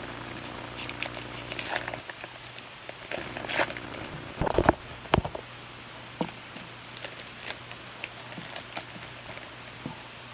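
Trading card packs and cards being handled: a pack wrapper crinkling and crackling, with scattered light clicks and a few louder taps about halfway through.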